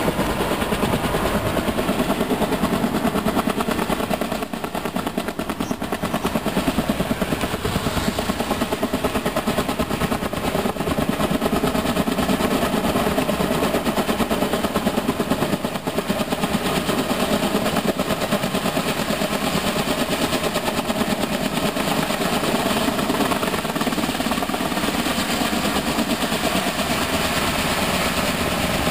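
Kaman K-Max K-1200 helicopter in flight, its twin intermeshing rotors beating in a fast, steady thudding over the turbine's running, loud throughout.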